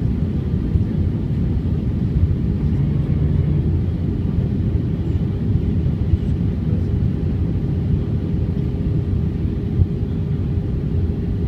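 Passenger-cabin noise of an airliner in flight: a steady low rumble of engines and rushing air, with a faint steady hum above it.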